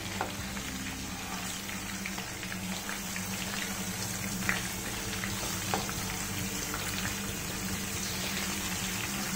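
Marinated chicken leg pieces sizzling steadily as they shallow-fry in oil in a non-stick pan while being turned over with silicone spatulas, with a couple of light knocks of the utensils against the pan partway through.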